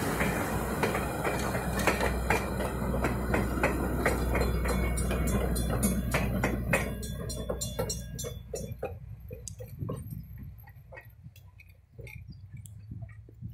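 Passenger railroad cars rolling past, their wheels clicking over rail joints in a steady clatter. About seven seconds in, the last car goes by and the sound falls away to a few scattered clicks as the train moves off.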